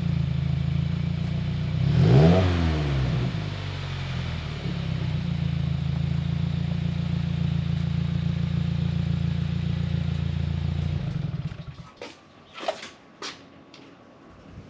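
2020 Subaru WRX's FA20 turbocharged flat-four running through a newly fitted Greddy RS Race catback exhaust: idling, with one quick rev about two seconds in that rises and falls in pitch, then a steady idle. The engine sound stops about eleven seconds in, followed by a few clattering knocks.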